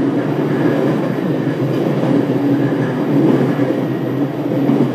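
Running noise heard from inside the motor car of a JR East E721 series electric multiple unit: a steady rumble of wheels on the rails and the traction equipment as the train runs along.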